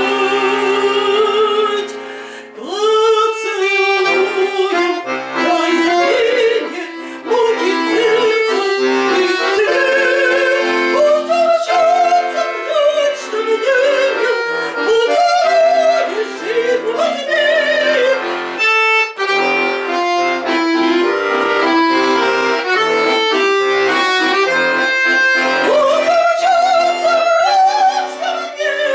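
A woman singing an old Russian romance with vibrato, over instrumental accompaniment holding sustained chords and bass notes, with short breaks between phrases.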